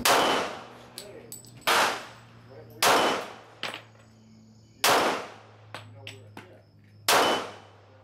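Glock 23 pistol fired five times in slow, unevenly spaced shots. Each shot is a sharp crack with a short ringing tail, with fainter knocks between the shots.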